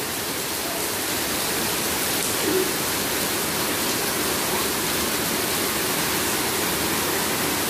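Heavy rain falling steadily on a wet concrete courtyard, with runoff streaming down from a roof edge; an even hiss with no breaks.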